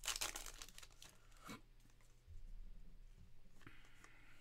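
Trading-card pack wrapper torn and crinkled in the first half-second, followed by quieter handling and a light click about a second and a half in.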